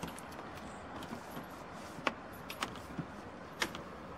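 A handful of light clicks and knocks from a door being closed carefully, its handle and latch working, over a faint steady background hiss.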